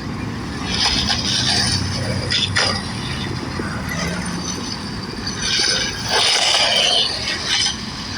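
Skateboard wheels rolling over pavement, a steady rolling rumble that swells twice with louder hissy stretches and a few sharp clicks.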